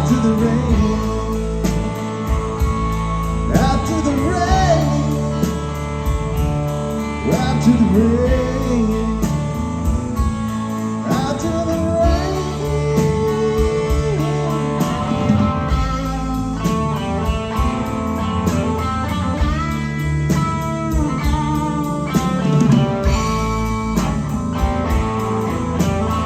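A rock band playing an instrumental passage: a lead guitar line with bending notes over rhythm guitar, bass and drums.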